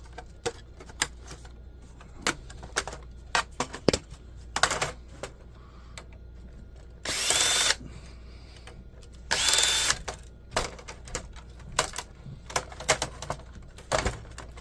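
Cordless drill-driver running in two short bursts of under a second each, backing out laptop case screws, amid scattered clicks and knocks of plastic parts and tools being handled.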